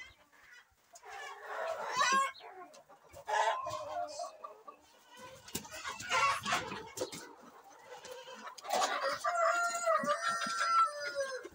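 Chickens clucking and calling in a coop of roosters and hens as cockerels are caught and carried, with a long rooster crow near the end.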